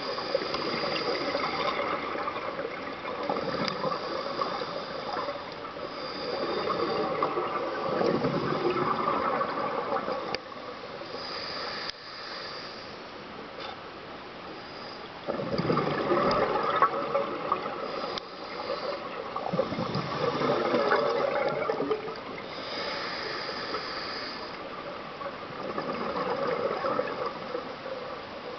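Scuba diver breathing through a regulator underwater: a high hiss on each inhale, then a gush of exhaust bubbles on each exhale, repeated over several slow breaths.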